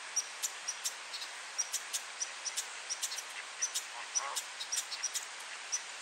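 A Canada goose gives a single honk about four seconds in, a warning honk. Small birds chirp throughout, over frequent sharp ticks.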